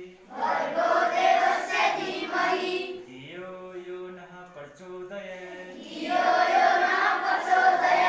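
A group of schoolchildren chanting a prayer together with their palms joined, in long held notes. The group comes in loudly about half a second in, drops back near three seconds, and swells again about six seconds in.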